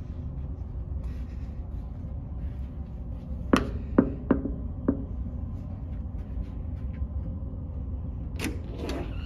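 Knuckles knocking on a cabin door, four raps about three and a half seconds in, over a steady low hum of the ship. Near the end, a few sharp clicks from the metal door handle and lock.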